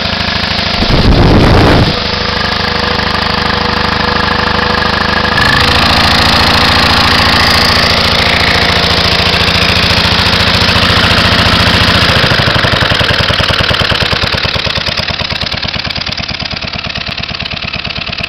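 1928 Lindsay portable air compressor with its single-cylinder Briggs & Stratton Model Q engine running, with a brief loud rush of air about a second in as the unloader valve is opened. Over the last several seconds the engine idles down, its separate firing beats slowing and growing quieter.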